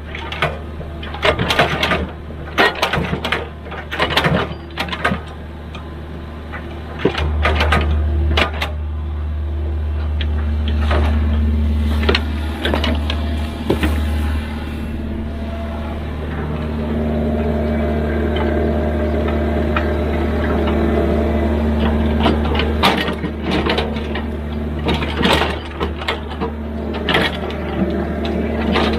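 Excavator diesel engine running, with a series of sharp knocks and clanks. From about seven seconds to about twenty-three seconds the engine runs louder and under more load while the knocking eases, then the knocks return.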